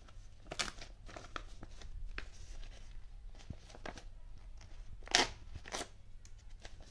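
Paper tearing and crinkling as the perforated side strips of a Google AdSense PIN mailer are ripped off and the mailer is opened: a run of small crackling rips, with two louder ones about five seconds in.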